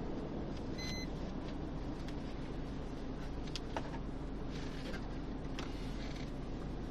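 Steady engine and road hum heard from inside a police patrol car, with a brief high electronic beep about a second in and a few faint clicks.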